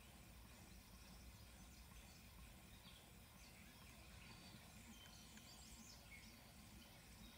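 Near silence: faint outdoor ambience, with a few distant bird chirps over a low steady hum.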